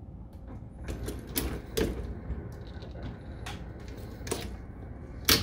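Irregular sharp metallic clicks and knocks from a progressive reloading press as brass cases are handled and decapped, primers punched out by the decapping die. The loudest click comes near the end.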